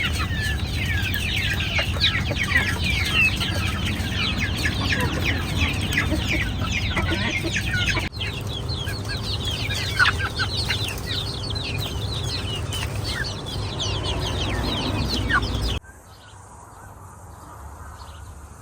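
A flock of chickens clucking, with many rapid high peeps overlapping. Near the end it cuts abruptly to a much quieter background.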